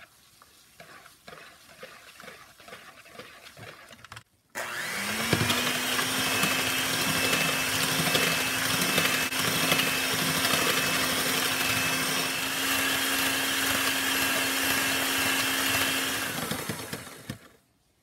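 Electric hand mixer with twin wire beaters whipping a gelatin and sweetener marshmallow mixture in a plastic bowl. After a quieter stretch of uneven knocking, the motor spins up about four and a half seconds in, rising in pitch, then runs steady and loud and winds down near the end.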